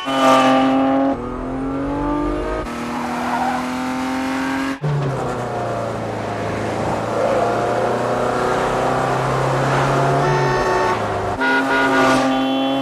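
Car engine revving hard under acceleration and shifting up through the gears: the pitch climbs and drops back three times in the first five seconds, then holds at high revs, with another change near the end.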